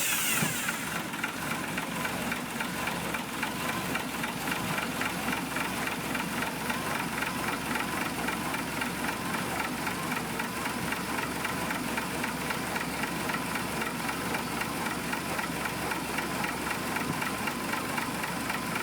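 Dodge WC military truck's flathead straight-six engine idling steadily with an even beat, just after being started.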